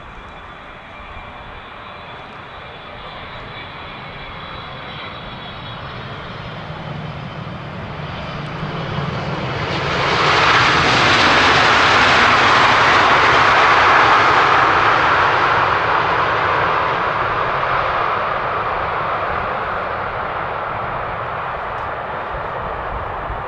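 Wide-body jet airliner on landing approach passing close by: the engines' whine and roar grow louder, become loudest about ten seconds in, then slowly fade as the aircraft moves away.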